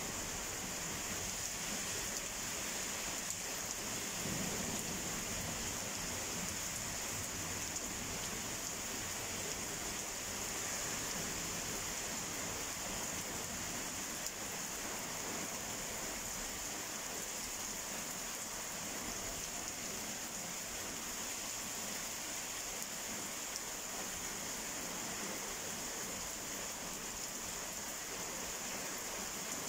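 Heavy rain falling in a steady downpour, with a low rumble of thunder about four seconds in.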